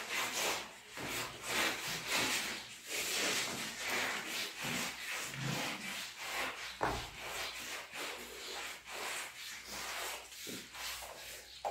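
Eating sounds: fingers mixing and squeezing rice and egg curry on steel plates in irregular rubbing, scraping strokes, along with chewing.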